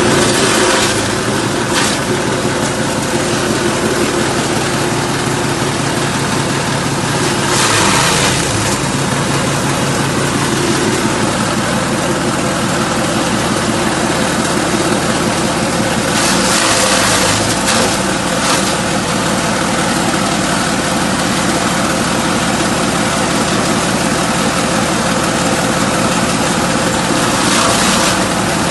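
Multifunction forage chopper (type S20) running steadily under engine power. It gives louder rushing bursts about eight seconds in, again around sixteen to eighteen seconds, and near the end.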